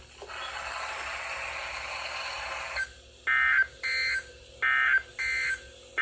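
NOAA Weather Radio receiver playing radio hiss after the test message ends, then the EAS end-of-message data bursts: short, harsh digital buzzes repeating about every two-thirds of a second, alternating louder and softer, marking the close of the Required Weekly Test.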